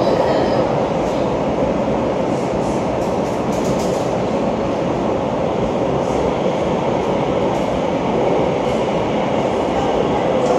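Cabin running noise of a Bombardier MOVIA C951 metro train travelling between stations: a steady rumble and hum, with a few faint clicks here and there.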